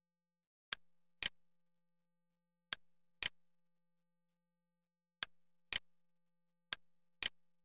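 Computer mouse clicks: eight short, sharp clicks in four pairs, each pair about half a second apart.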